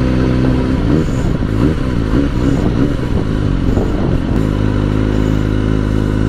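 Sport motorcycle engine running as it is ridden, its note rising and falling through the middle and then holding steady near the end.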